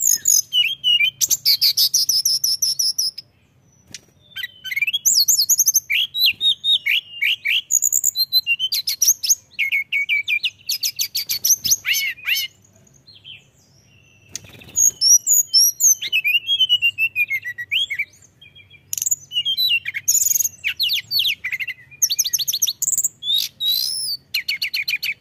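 A caged tledekan gunung, a blue flycatcher, singing in full voice: long runs of fast trills and whistled notes that swoop up and down, broken by a few short pauses.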